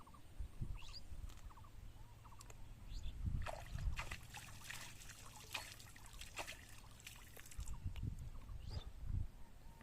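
Water splashing and trickling in a run of short bursts through the middle, over a low rumble, with a few faint bird chirps.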